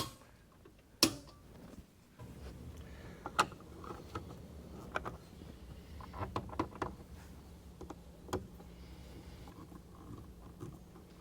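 Scattered clicks and knocks of a cover plate being fitted and screwed onto an electrical outlet box, with a low steady hum coming in about two seconds in.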